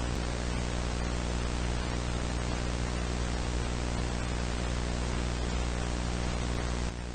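Steady static hiss with a buzzing electrical mains hum underneath, dropping a little in level just before the end.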